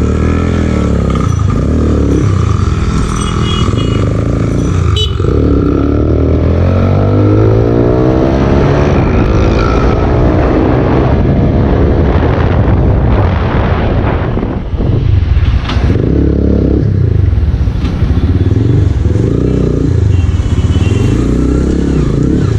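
Taro GP One 150cc motorcycle engine running under way, its revs rising and falling as it accelerates, with a long rising rev about five seconds in.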